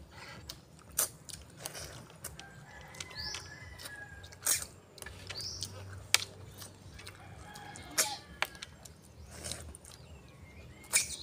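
People eating cooked banag snails by hand: scattered short, sharp sucking and clicking sounds as the meat is drawn from the shells and the shells are handled on the plates. Two short rising bird chirps sound a few seconds in.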